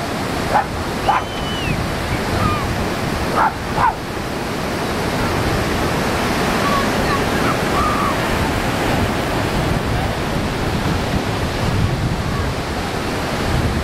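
Steady rushing of waves washing over a flat beach, with wind on the microphone. A few short, sharp cries stand out in the first four seconds, and fainter chirps follow about halfway through.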